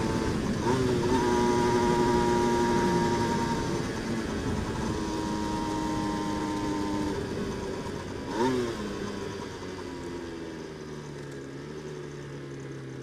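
Aprilia RS125's two-stroke single-cylinder engine running at a steady cruising speed with wind rushing past. About eight seconds in there is a short sharp rev, and after that the engine runs quieter as the bike slows for a roundabout.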